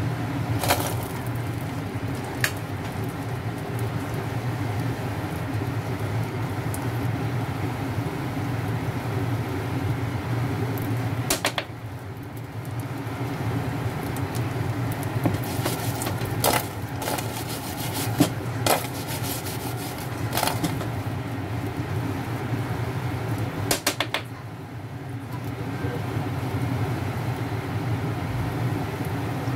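Chicken wings frying in a nonstick pan with a steady sizzle over the steady hum of an induction hob. Tongs click against the pan several times as the wings are dropped in and turned.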